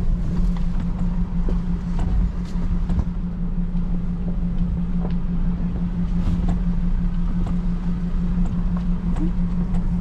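Ford Ranger running with a steady engine drone and low rumble, with scattered light knocks and rattles.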